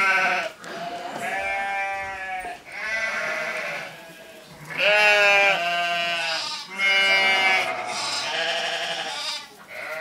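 Sheep bleating: a string of long, wavering bleats, several overlapping, the loudest about five seconds in.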